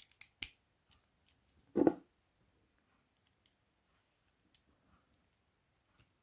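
Small sharp clicks and taps of metal tools and lock parts being handled while a padlock is taken apart, with one louder, duller knock about two seconds in.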